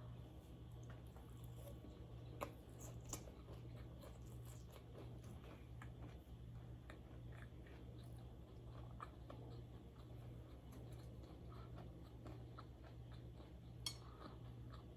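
Faint chewing and wet mouth sounds of someone eating sushi, with a few soft clicks, over a steady low hum.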